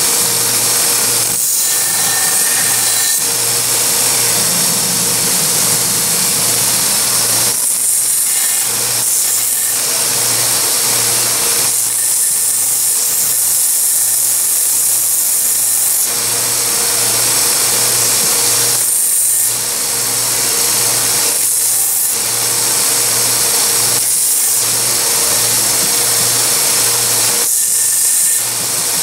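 Small bench belt grinder running, its abrasive belt grinding down a neck knife's epoxied handle: a steady motor hum under a loud sanding hiss, with brief breaks several times.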